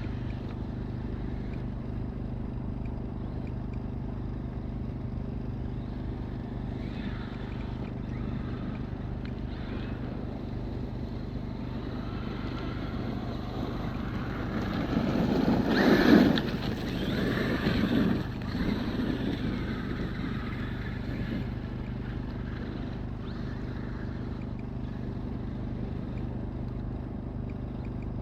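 Traxxas X-Maxx RC monster truck's electric motor and tyres driving over ice, over a steady low hum. The sound swells, peaks sharply about sixteen seconds in, and rises again briefly a couple of seconds later.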